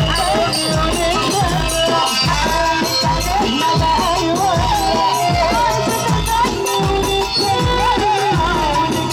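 Live Egyptian shaabi party music, loud and continuous: a wavering, heavily ornamented melody line over a steady pounding percussion beat with shaker-like rattle.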